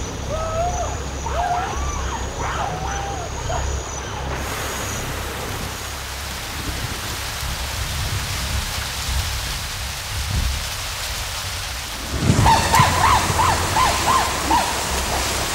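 Heavy rain hissing steadily on rainforest foliage, with a loud crack of thunder about twelve seconds in. In the first few seconds, before the rain comes in, a few rising-and-falling whistled calls are heard.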